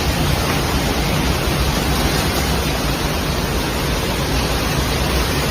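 Muddy floodwater rushing in a river torrent: a loud, steady noise with a strong low rumble.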